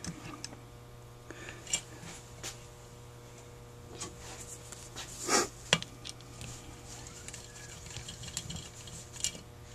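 Light clicks and clinks of small metal carburetor parts, screws and hand tools being handled on a workbench as the top of a Carter YFA carburetor is screwed down, with one louder rattle about five seconds in. A low steady hum runs underneath.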